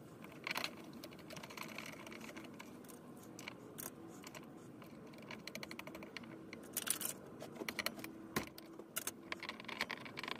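Faint, irregular small metal clicks and taps as a hand tool is worked inside the pump tube of a Coleman 508 stove. A quick run of clicks comes about seven seconds in, and a single sharper tap follows.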